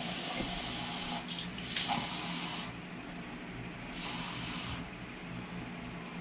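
Kitchen faucet running water into a plastic shaker cup, filling it. The flow cuts back just under three seconds in, then runs again briefly about a second later.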